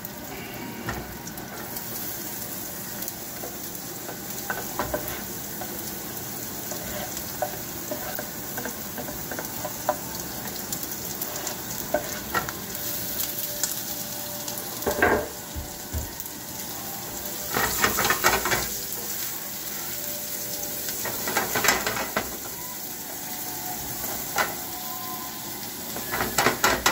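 Chopped garlic and diced onion sizzling in butter in a frying pan, with a spatula scraping and stirring in the pan several times. The loudest strokes come in the second half.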